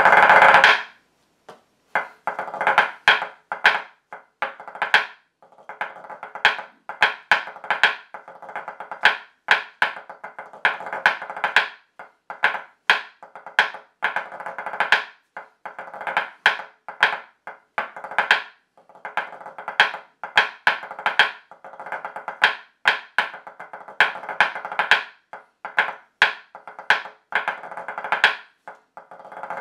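Wooden drumsticks on a practice pad playing a 2/4 march in pipe-band snare style: quick taps and accented strokes mixed with rolls. A long roll ends just under a second in, followed by a brief pause, and then the march runs on.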